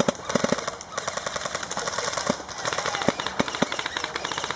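Airsoft rifles firing in quick bursts and single shots: a rapid run of sharp clicks and cracks, with some louder separate shots.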